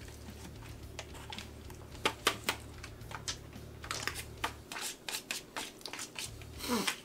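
Forks clicking and scraping in aluminium foil pie tins, with the foil crinkling, in quick irregular clicks. The sharpest clicks come about two seconds in.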